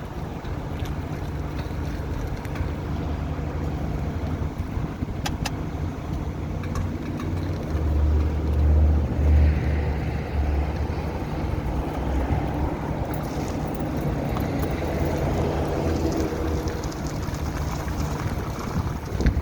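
Car moving slowly with the steering turned: engine running and a low rumbling noise from the front end, loudest from about eight to eleven seconds in. This is the front-wheel noise that comes on when turning, worse when turning in reverse.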